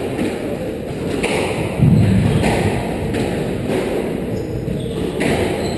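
Squash rally: the ball's dull thuds off rackets and court walls, a string of strikes roughly a second or less apart, the loudest and deepest about two seconds in.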